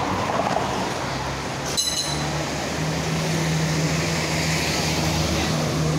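Hong Kong double-decker electric tram passing close by, with a steady rumble of its wheels on the street rails. A single sharp metallic clink comes just before two seconds in, and a steady low hum sets in from then on.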